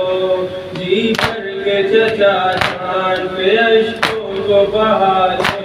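A male voice chants a noha, a Shia lament, through a microphone. Over it a group of men beat their chests in unison (matam), four sharp strikes about a second and a half apart.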